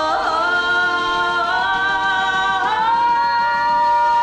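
Singing of a worship song, with long held notes that slide to a new pitch a few times.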